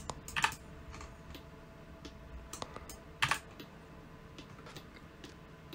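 Computer keyboard keys being pressed: a handful of scattered, separate key clicks, the loudest about three seconds in.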